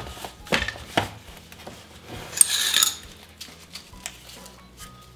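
Plastic personal-blender cup being handled: a few light knocks as the black blade base is fitted on, then a short scraping rasp a little after two seconds in.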